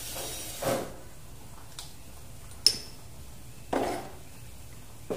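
A few scattered knocks and clinks of a glass jar and a plastic mixing bowl being handled on a kitchen counter and shelf, with one sharp, ringing glass clink near the middle.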